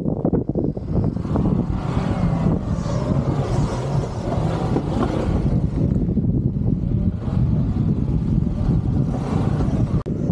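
Four-wheel-drive vehicle running steadily, a low engine rumble with a rushing noise over it from about a second in until just before the end.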